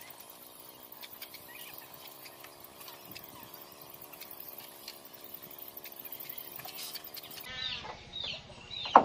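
A faint steady hum with scattered short chirps. Near the end come several bird calls and one sharp, loud knock.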